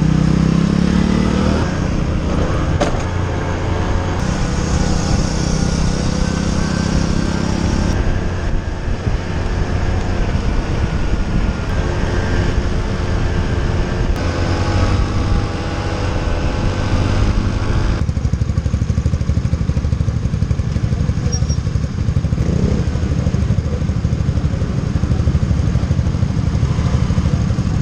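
Motorcycle engine running while riding, with its pitch rising and falling as the bike speeds up and changes gear. The sound settles lower and calmer over the last several seconds as the bike slows to a stop.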